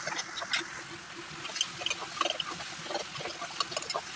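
Tomato masala sizzling and spitting in a hot wok, with many small irregular pops, while a spatula stirs and scrapes it against the pan.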